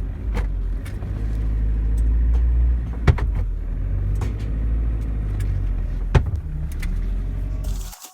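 A car driving: a steady low rumble of engine and road noise, with a few sharp knocks about three seconds apart, cut off abruptly near the end.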